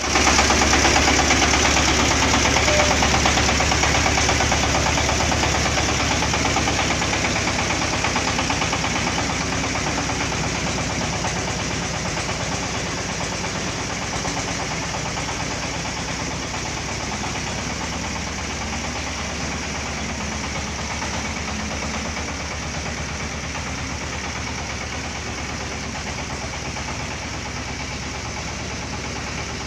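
Corn harvester's engine and machinery running steadily, slowly growing quieter over the stretch.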